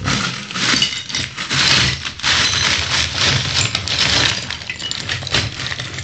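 Broken floor tile shards clattering and scraping as they are scooped up with a drywall blade into an old paint-roller tray used as a dustpan: a dense, continuous rattle of tile pieces.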